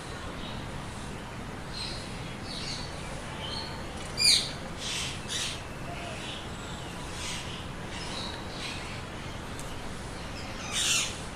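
Green parrot giving short, high squawks and chirps at irregular intervals, the loudest about four seconds in and a few more near the end.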